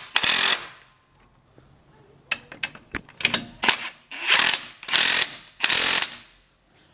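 Cordless impact wrench hammering in a run of short bursts, about half a second each, with a few light clicks between them. It is driving finger-started mounting bolts up into the winch's nuts to tighten them.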